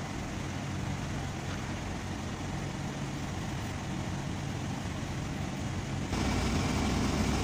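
Steady low mechanical hum of workshop background, like a large engine running nearby, that jumps abruptly louder about six seconds in.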